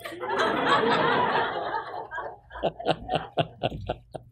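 Audience laughing: a dense burst of laughter for about two seconds that breaks up into a few short, separate laughs and fades.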